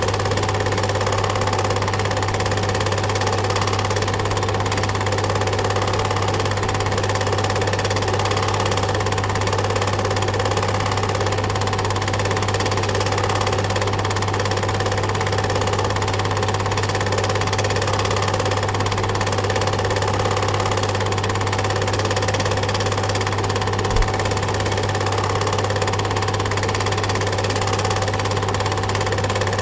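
Steady mechanical whirr and hum of a running film projector, with an even, slowly pulsing clatter and one brief knock late on.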